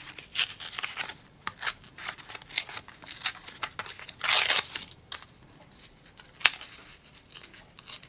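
Painted index card torn by hand in a series of short rips, with one longer tear about four and a half seconds in.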